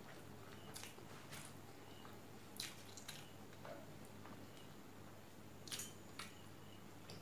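Quiet, wet eating sounds: a few scattered sticky smacks and clicks as rice and fish curry are mixed by hand on a steel plate and chewed.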